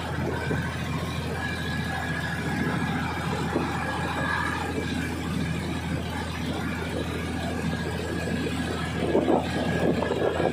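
Diesel multiple-unit train running: a steady engine hum with rail and carriage noise, a faint high whine in the first half, and louder clatter near the end.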